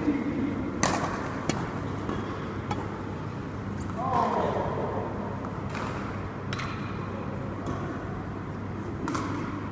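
Badminton rackets hitting a shuttlecock in a doubles rally: sharp clicks at uneven gaps of about a second, the loudest about a second in. A brief shout from a player comes about four seconds in, over a steady low hum in the hall.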